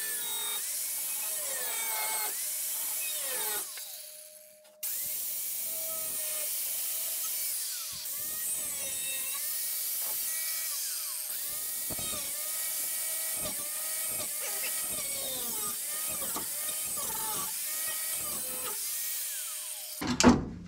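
Power tool cutting out rusted sheet metal, its pitch dropping and recovering over and over as it bites into the panel. It breaks off briefly about four seconds in, then stops just before the end with a knock.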